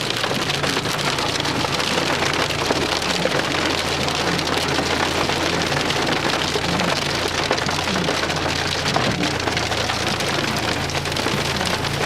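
Hail falling on a car: a dense, steady patter of countless small hits on the bodywork, with a low steady hum underneath.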